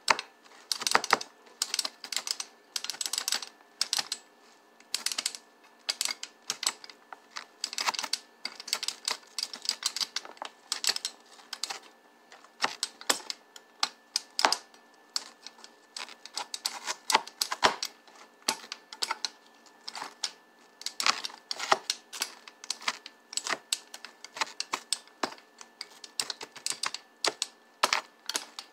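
Pizza slicer wheel pressed and rolled back and forth over onion on a cutting board, mincing it: quick irregular clicks and taps, several a second, in bursts with short pauses.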